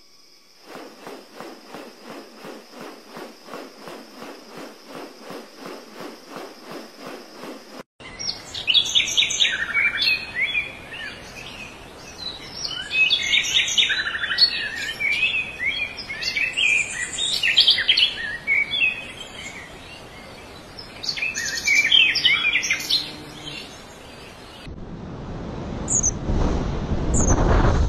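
Rhythmic pulsing, two to three beats a second, over a steady high whine. About eight seconds in it gives way to small songbirds chirping and twittering in quick, high, rising notes, the loudest part. Near the end comes a rushing, wind-like noise with a few short high squeaks.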